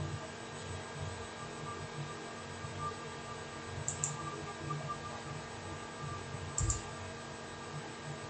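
Steady electrical hum with a few faint steady tones. Two short clicks at the computer running the CNC control software, about four and six and a half seconds in, the second with a soft thump.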